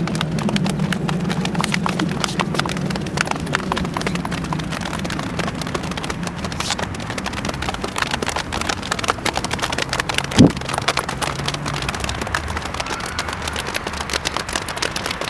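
A group of people slapping their hands on their thighs: a dense stream of many overlapping pats, with one louder thump about ten seconds in.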